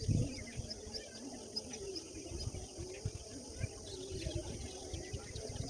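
Small birds chirping and calling in a morning chorus: many quick high chirps over a steady high-pitched background, with low thumps of wind or handling on the microphone near the start.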